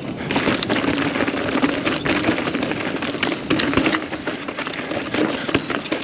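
Mountain bike rattling and clattering over rough rocky trail at speed: many sharp knocks and clicks from tyres, chain and frame over rock, above a steady hum.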